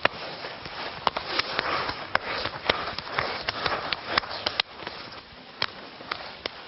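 Quick, irregular sharp clacks of Arnis training sticks striking each other and hands slapping sticks and arms in a fast tapi-tapi counter-strike exchange, over a steady hiss.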